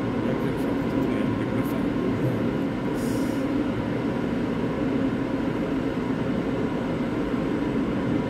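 Tokaido Shinkansen train approaching the station platform: a steady rumble with a faint steady hum, not yet growing louder.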